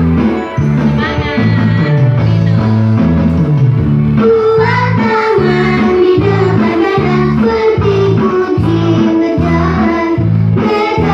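Background music: a song with a female or child's voice singing over a plucked guitar and a steady beat.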